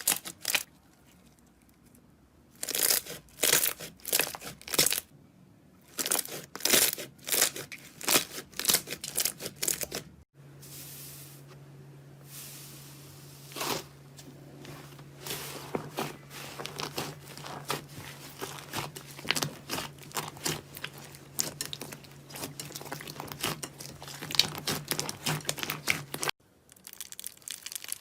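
Slime being squished and stretched by hand, making crackling, popping squishes. In the first part they come as separate short squelches; about ten seconds in the sound changes abruptly to a denser, continuous crackling over a steady low hum.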